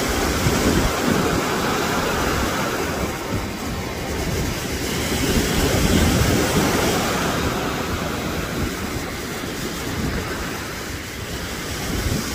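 Sea waves washing and breaking in a steady, swelling rush, with wind rumbling on the microphone.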